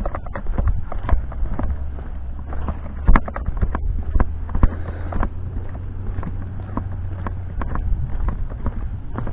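Irregular footsteps and knocks from someone walking with the camera in hand, over a low, steady engine hum that comes in about a second and a half in and fades near the end.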